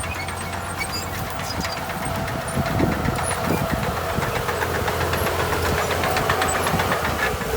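Diesel engine of heavy earthmoving equipment running, with a rapid, even clatter over a steady low hum; it gets a little louder about three seconds in.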